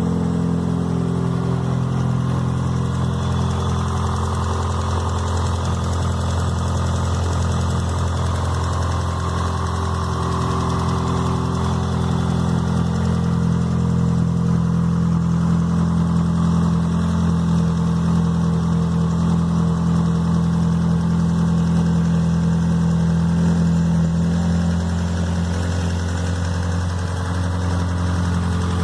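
Fiat Marea 1.8 16v engine idling steadily, with an abnormal engine noise that the owner is recording as a fault.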